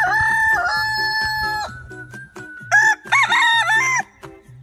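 Rooster crowing twice, over faint background music with a steady beat.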